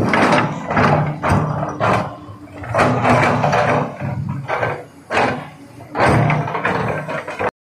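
Hydraulic excavator at work: its engine rising and falling under load, with the bucket scraping and knocking against rock and dirt in loud, uneven surges about a second apart. The sound cuts off abruptly just before the end.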